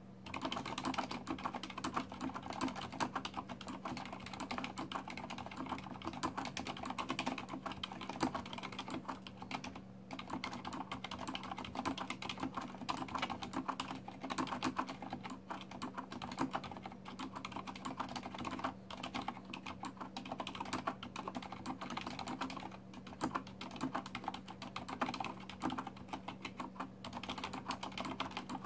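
Fast, continuous typing on a Corsair STRAFE RGB mechanical keyboard with Cherry MX Silent switches, at about 95 words a minute: a quick, irregular patter of dampened key presses.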